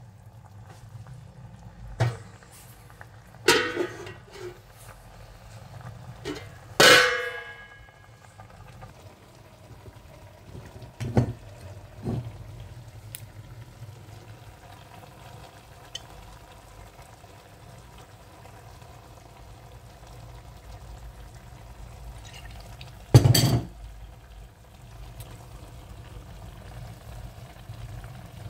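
Kitchen handling sounds: a handful of sharp clinks and knocks against a stainless-steel cooking pot, one about seven seconds in ringing briefly, over a steady low hum.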